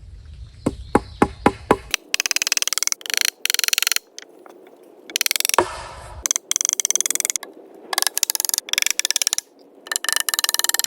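Building a wooden bench: a quick run of five or six hammer knocks on wood about a second in, then repeated bursts of rapid rasping strokes, a saw cutting wood.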